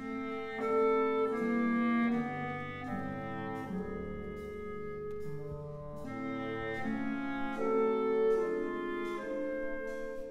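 Slow instrumental background music: a melody of held notes, changing about once or twice a second, over lower sustained tones.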